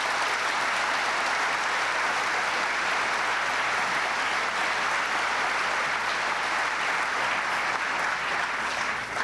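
Large audience applauding steadily, the clapping dying away at the very end.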